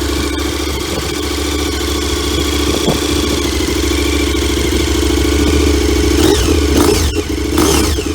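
KTM 1290 Super Adventure's V-twin engine running through its standard exhaust, idling steadily, with a few short throttle blips near the end.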